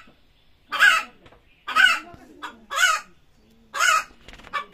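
Hen squawking loudly, four harsh calls about a second apart and a smaller one near the end: a hen's calling around egg-laying.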